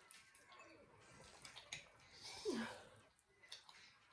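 Faint mouth and eating noises over a noodle meal, with one short hissy slurp that has a brief falling squeak, about two and a half seconds in.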